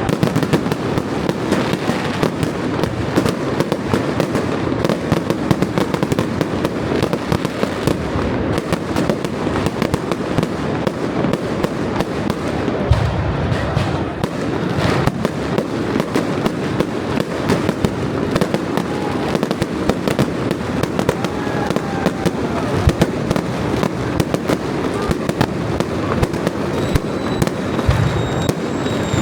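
Fireworks display: a dense, unbroken barrage of bangs and crackling shell bursts. Near the end a faint high whistle sounds over it.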